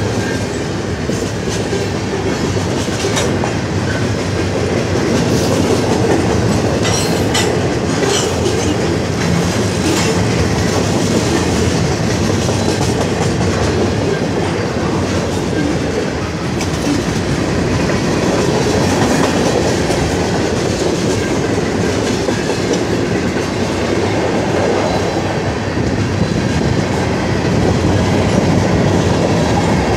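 Freight train cars rolling past at close range: a steady loud rumble of steel wheels on rail with clickety-clack over the rail joints. A few sharp metallic clanks come in the first ten seconds or so.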